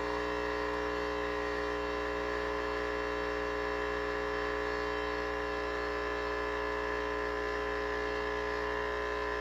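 Nespresso Original-line capsule coffee machine brewing: its pump runs with a steady, even hum as the coffee dispenses into the cup.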